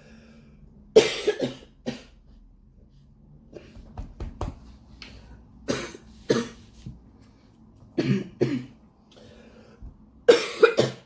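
A person coughing in repeated fits: short coughs in pairs and small clusters, about every two seconds, with a few fainter ones between them. This is the cough of someone sick with a chest cold.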